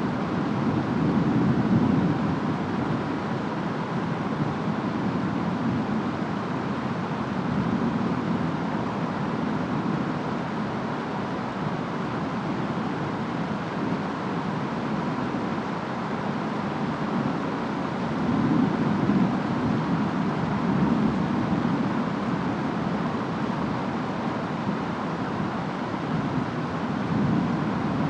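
Steady rain and wind of a distant storm, with slow low swells about two seconds in, around twenty seconds in, and near the end.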